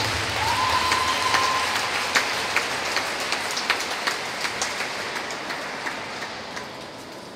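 Scattered applause from a small audience in a large arena, individual hand claps standing out, thinning and fading away. A brief steady tone, like a whistle, sounds about half a second in.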